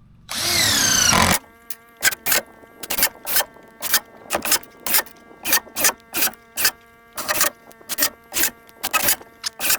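A power screwdriver drives long screws through stacked 2x6 boards. A loud whine about half a second in is followed by the motor running steadily under a string of sharp knocks, two or three a second.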